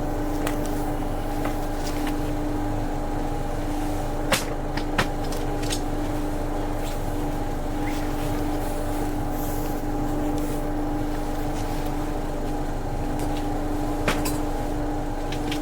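A steady mechanical hum with a low rumble beneath it, and a few sharp clicks about four, five and fourteen seconds in.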